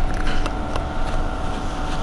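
Irizar i2e battery-electric bus standing at a stop, its auxiliary equipment giving a steady hum with a few held tones over a low rumble, with some light clicks.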